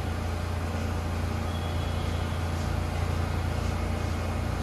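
Steady low rumble and hum on an underground railway platform, even throughout with no distinct knocks or horn.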